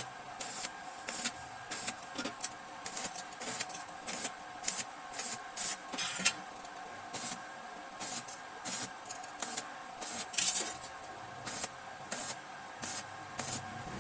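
Regular rasping strokes of a hand tool on a metal exhaust pipe, about three strokes every two seconds, over a steady hum.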